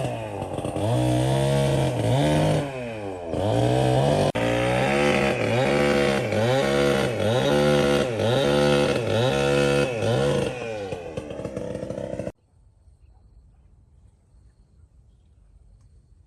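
Chainsaw engine running hard, its pitch rising and falling about once a second in repeated revs. It cuts off suddenly about twelve seconds in, leaving only a faint low hum.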